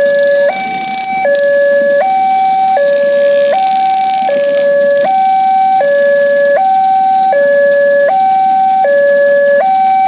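Indonesian railway level-crossing alarm sounding from its pole-mounted horn loudspeaker: a loud, steady two-tone electronic signal alternating evenly between a lower and a higher note, each held about three-quarters of a second, the warning that a train is approaching and the crossing is closing.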